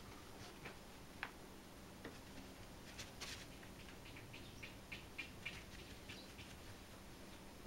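Faint light taps and scratches of a cat's paw against a glass door pane, scattered at first, then a quick run of small ticks about three or four a second through the middle.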